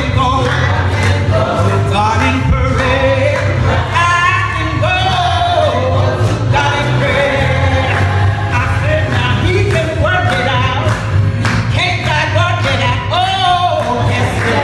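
Gospel choir singing with instrumental accompaniment and a steady bass line, in a church.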